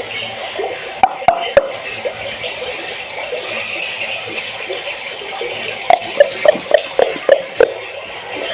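Steady water noise with short bubbling blips: a few about a second in, then a quicker run of about eight near the end.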